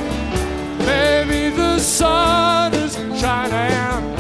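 Rock band playing live: a lead melody of wavering, bending notes over bass and a steady cymbal and drum beat, in the instrumental opening of the song.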